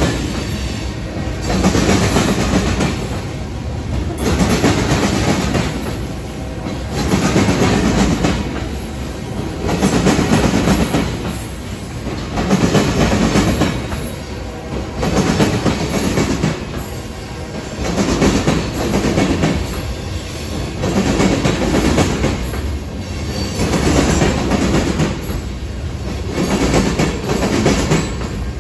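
Freight train cars rolling past with steel wheels clattering on the rails. The sound swells and fades about every two seconds as each car goes by. Loaded tank cars pass first, then boxcars near the end.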